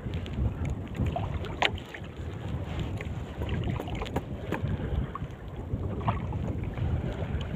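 Wind buffeting the microphone in a small open fishing boat, an uneven low rumble, with a few scattered light clicks and knocks.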